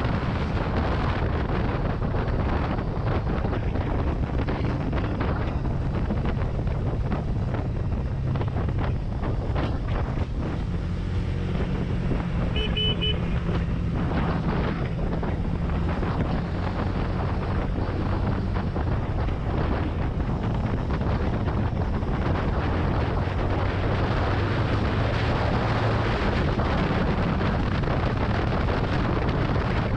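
Benelli TNT 25's 249 cc single-cylinder engine running under way, with heavy wind noise buffeting the microphone. About halfway through there is a brief high-pitched beep.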